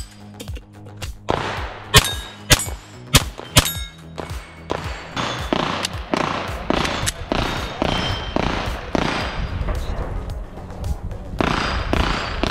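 A quick string of pistol shots at steel knockdown targets over the first few seconds, then background music with a steady beat.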